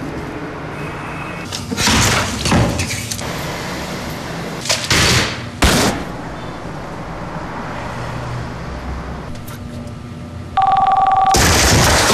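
A run of loud crashes and swishes as papers and things are flung about a desk, several sudden bangs spread over the first six seconds. About ten and a half seconds in, a steady buzzing tone on two pitches starts, then gives way to loud rushing noise.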